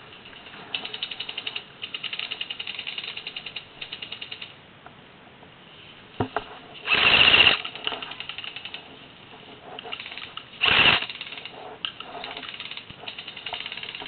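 Airsoft gun fire on full auto: several bursts of a fast, even rattle, each about a second long, in the first few seconds and again near the end. In between come two louder short bursts of noise.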